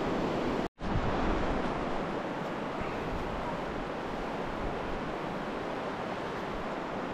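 Steady rush of the Virgin River's flowing water in a narrow canyon, an even noise with no distinct events. It cuts out for an instant just under a second in, then carries on slightly quieter.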